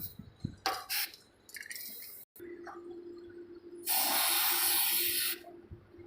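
Aerosol can spraying, the kind used for dye penetrant testing: two short hissing squirts about a second in, then one long steady spray of about a second and a half near the end.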